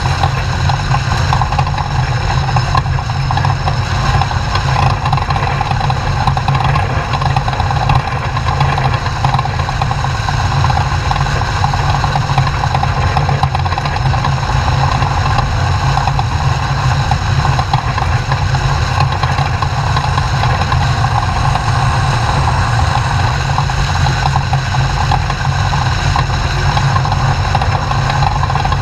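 Off-road race truck's engine running steadily, with no marked rise or fall in revs.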